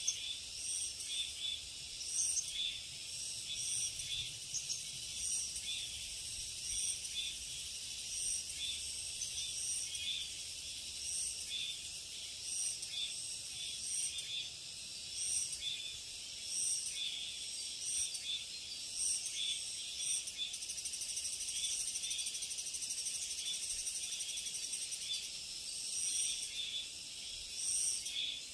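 Insects calling in a summer forest chorus: high-pitched chirring pulses repeating about once a second, with a few seconds of unbroken buzzing past the middle.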